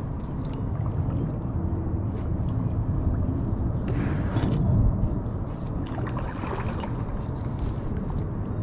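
Kayak paddling: water splashing and gurgling with the paddle strokes, over a steady low rumble, with louder splashes about halfway through and again a little later.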